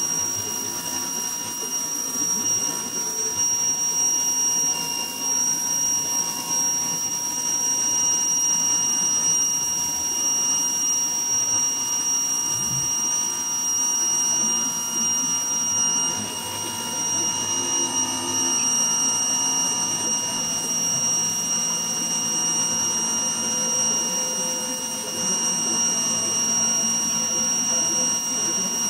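Ryobi electric pressure washer running steadily, a constant high whine over the hiss of the spray striking concrete.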